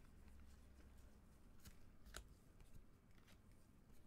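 Faint handling of glossy Topps Star Wars Chrome trading cards in nitrile-gloved hands: a few soft clicks and slides as cards are flipped to the back of the stack, the clearest about two seconds in.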